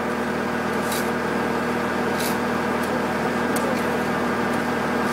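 A machine engine running steadily, a constant hum with several even tones, with a few faint short ticks over it.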